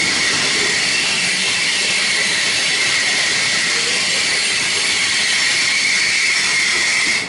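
Train moving through the station: a steady high-pitched squeal holds over a loud hiss of rolling noise.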